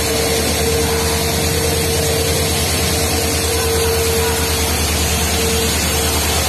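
Diesel locomotive passing close by, its engine running with a steady low pulse and a constant whine over a broad rushing noise.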